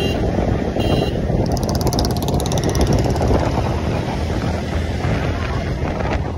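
Motorcycle riding at road speed: steady wind rush on the helmet-mounted microphone over the running engine.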